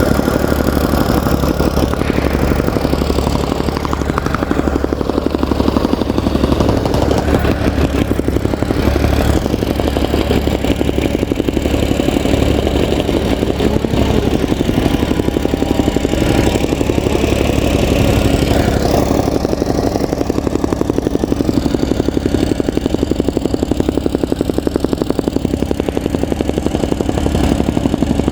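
Soil compactor running steadily, its small engine and pounding vibration giving a fast, even pulsing.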